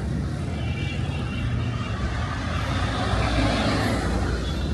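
Road traffic: vehicle engines running with a steady low rumble.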